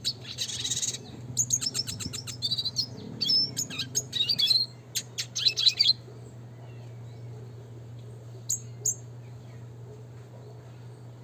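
Red siskin singing a fast twittering song of high chirps and rapid trills, which breaks off about six seconds in and is followed by two short chirps a few seconds later. A steady low hum sits underneath.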